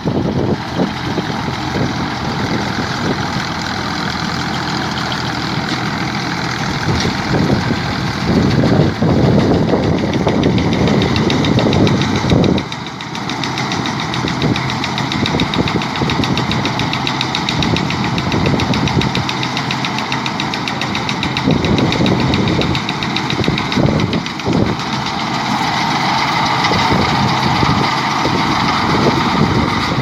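Deutz-Fahr tractor's diesel engine running while it pulls a New Holland BR6090 round baler picking up paddy straw, the engine and the baler's machinery sounding together. The sound swells and eases a little, with a brief dip about halfway through.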